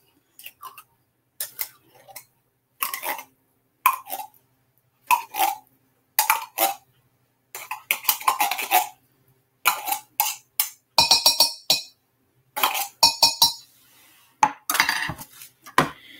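Manual can opener being cranked around a metal can: an uneven run of short clicks, one or two a second, then a louder metallic clatter with some ringing of the can about two-thirds of the way through.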